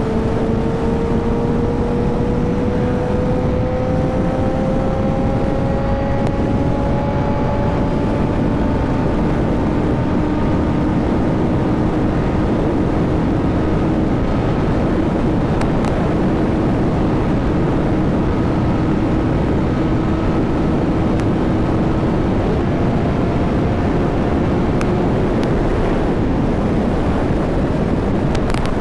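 Honda CBR1000 inline-four motorcycle being ridden: a steady rush of wind and road noise, with the engine's tone rising slowly over the first several seconds and then holding steady.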